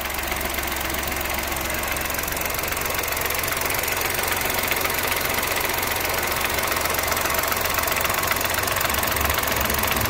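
A Chevrolet Tracker's turbocharged three-cylinder engine idling with a fast, dry knocking tick, "batendo seco", which is put down to its mechanical brake vacuum pump and is said to be normal for these engines.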